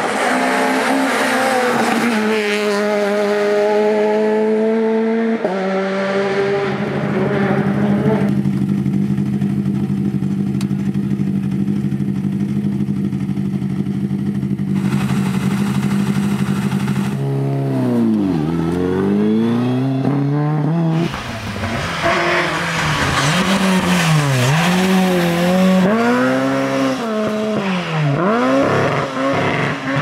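Rally car engines at full throttle. First one car accelerates hard and shifts up through several gears. Then a Lada VFTS's engine runs at a steady speed for about ten seconds before being blipped in sharp revs, and near the end another engine rises and falls repeatedly through gear changes.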